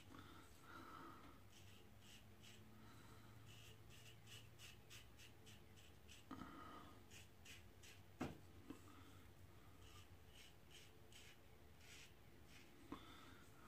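Faint, rhythmic scraping of a Global Shave Club Americano double-edge safety razor cutting through lathered stubble, one short stroke after another. A single sharp click comes about eight seconds in.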